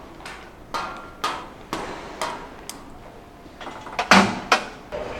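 Hard-soled footsteps on a hallway floor, about two steps a second, with two louder knocks about four seconds in.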